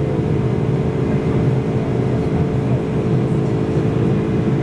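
Boeing 747-400's General Electric CF6 turbofan engines heard from inside the cabin in climb after take-off: a steady, loud drone, a hum of several even tones under a broad rush of air and engine noise.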